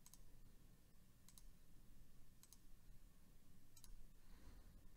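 Near silence with four faint computer mouse clicks about a second apart, over a faint low room hum.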